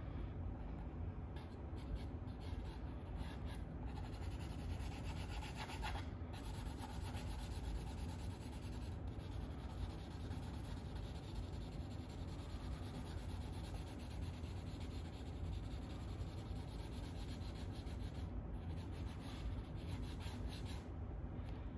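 Drawing tool rubbing and scratching across sketchbook paper in continuous strokes, with a few brief pauses.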